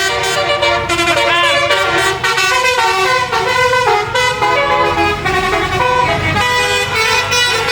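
Bus telolet horn playing a multi-note tune: several horn tones sounding together and stepping from note to note, with a rising-and-falling swoop about a second and a half in.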